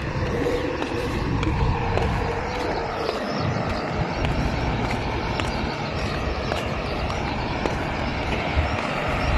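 Gusty wind rumbling on a phone microphone, with faint outdoor background noise.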